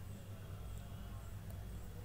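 Low steady hum with a faint hiss: background noise in a pause between spoken words, with no distinct sound event.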